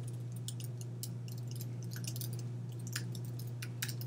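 Computer keyboard keys clicking at an irregular pace as a line of code is typed, over a steady low electrical hum.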